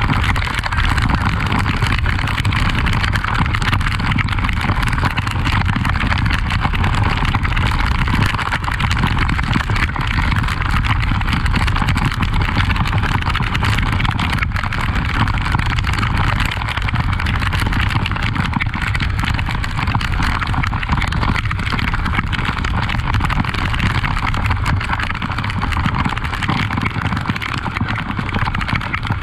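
Honda XRE 300 motorcycle's single-cylinder engine running steadily as the bike is ridden, mixed with constant rushing noise.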